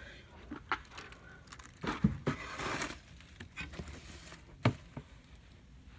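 Trash can being carried back and set down: a few sharp knocks, with a rustle about two seconds in.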